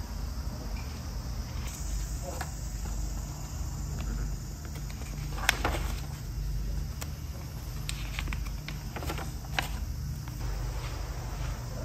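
Paper notebook pages being handled and turned, with a few short crisp rustles, the loudest about halfway through. Underneath runs a steady insect chorus.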